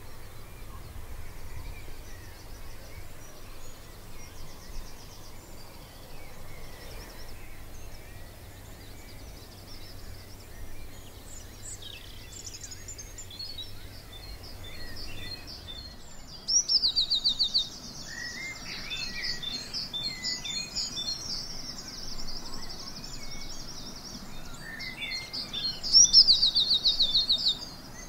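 Dawn chorus: several songbirds singing at once, overlapping high chirps and trilled phrases. About halfway through, and again near the end, a nearby bird sings a loud, fast trill that falls in pitch.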